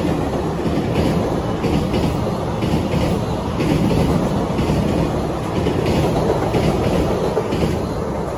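Freight train wagons rolling past, a loud steady rumble with a regular clickety-clack of the wheels over rail joints.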